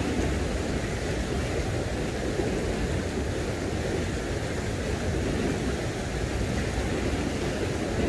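Mountain stream water rushing steadily over boulders and a small cascade.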